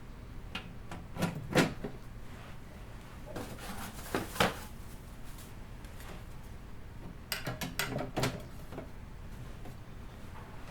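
Aquarium parts being handled: a pair of sharp knocks, another pair about three seconds later, then a quick run of clicks and clunks, like a lid being set and fitted on a tank.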